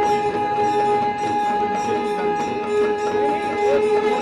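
A conch shell (shankh) blown in one long, steady note, with hands clapping along.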